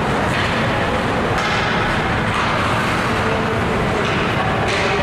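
Steady din of an ice hockey rink during play, with skates scraping the ice in several brief hissing bursts.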